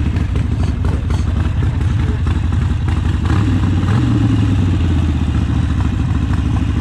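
Harley-Davidson Forty-Eight's air-cooled 1200 cc V-twin idling with a steady, lumpy beat. The revs rise slightly about four seconds in, then settle back.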